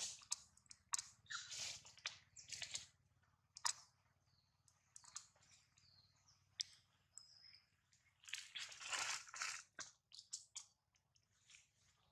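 Infant macaque suckling at its mother's nipple: faint, irregular wet clicks and smacks, with a longer, louder noisy burst about three-quarters of the way through.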